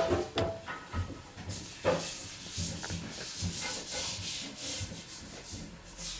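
Hands and baby clothing rubbing and rustling close to the microphone, a run of short scraping noises.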